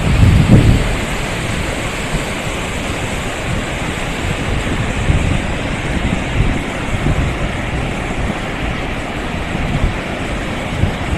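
Wind buffeting the microphone in uneven low gusts over a steady rushing noise, strongest about half a second in.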